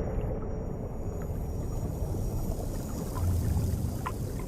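Low, steady rumble of moving water, with a few faint short clicks in the second half.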